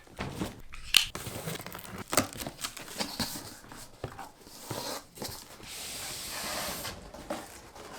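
Packaging being torn and opened: sharp snaps and crinkling, then one long rip of about a second and a half, about two-thirds of the way through.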